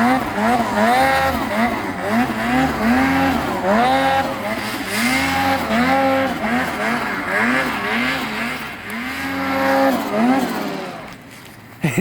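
Snowmobile engine under changing throttle, its pitch climbing, holding and dropping again about once a second, then falling away near the end.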